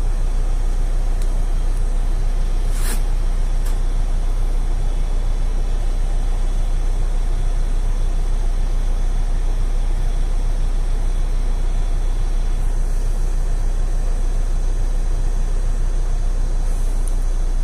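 Mercedes-Benz Citaro city bus's diesel engine idling steadily while the bus stands still, heard from inside the cabin. A brief sharp sound cuts in about three seconds in.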